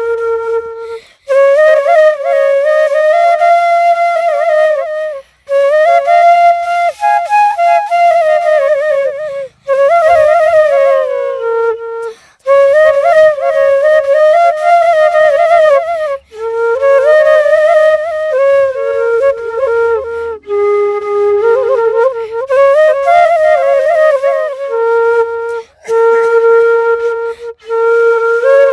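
A solo flute playing a single melody line in phrases a few seconds long, with short breaks between them.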